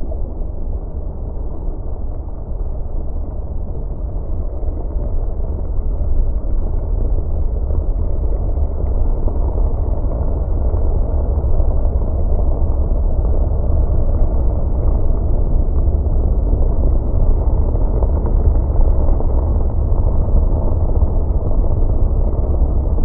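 Glacier ice moving: a deep, steady rumble that grows slowly louder over the first several seconds, then holds.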